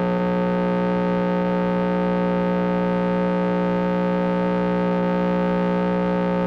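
A loud, unchanging electronic buzz made of several steady tones, an audio fault in the recording that covers the sound track.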